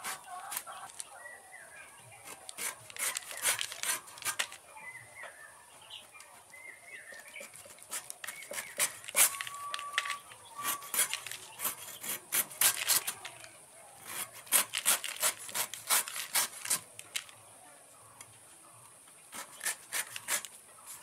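Raw green jackfruit being sliced on a boti, an upright floor-mounted blade: groups of quick, crisp cutting strokes through the firm flesh and spiky rind, with short pauses between the groups.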